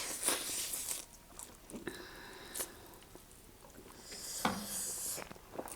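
Mouth noises of someone eating noodles close to the microphone: chewing and slurping, with a hissy stretch at the start and another about four seconds in.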